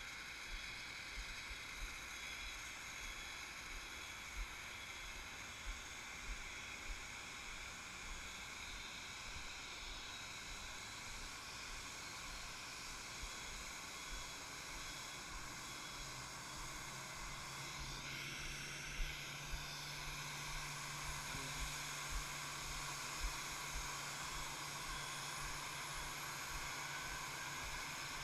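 Airbus A319 jet whine during pushback: a steady hiss with several high steady tones. In the last few seconds a whine climbs in pitch as an engine spools up on start. Low thumps throughout.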